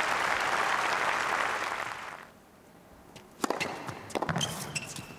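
Crowd applause fading out over about two seconds. After a short quiet, a tennis ball is bounced on the court before a serve, giving a series of sharp knocks.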